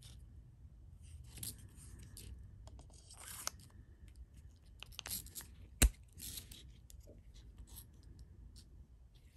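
Handling noises of a neck knife and its molded plastic sheath: rustling and scraping, with one sharp click about six seconds in that is the loudest sound.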